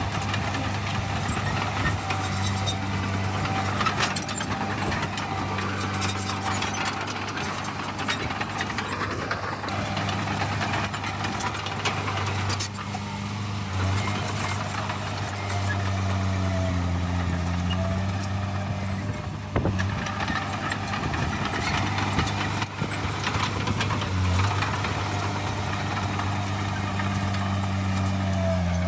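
Heavy diesel earthmoving machinery running steadily at a constant engine note, dipping briefly in pitch about halfway through, with scattered metallic clanks.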